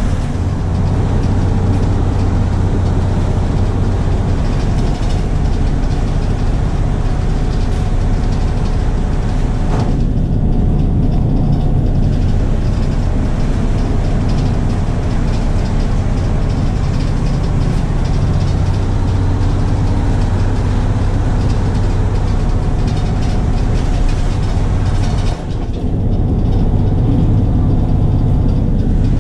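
Cabin of a 1971 Crown Super Coach school bus under way: the engine drones steadily under a constant hiss of road and wind noise. The hiss drops back about ten seconds in, and there is a brief dip near the end.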